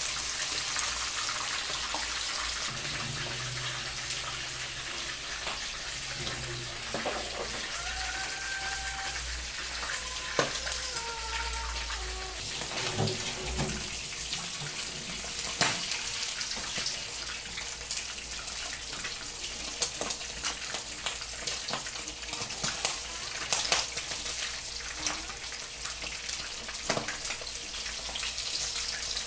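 Duck pieces deep-frying in hot oil in a wok: a steady sizzle with scattered sharp crackles and pops, the meat browned and nearly done.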